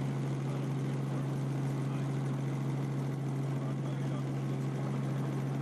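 Steady drone of a news helicopter in flight, heard from inside the cabin: an unbroken low hum over a constant hiss.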